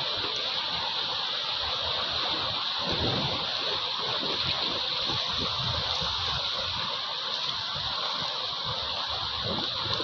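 Sea surf washing over a rocky shore: a steady rush of water with irregular low surges underneath.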